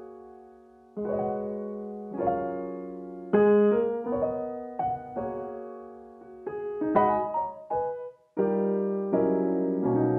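Piano background music: single notes and chords struck and left to ring out in a gentle, unhurried melody.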